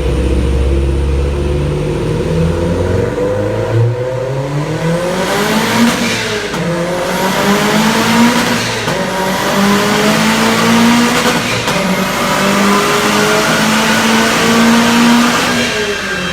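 Subaru Impreza STI's turbocharged flat-four engine on a full-throttle run, its pitch climbing steadily, dipping briefly about six and a half seconds in, then holding at high revs and falling away near the end.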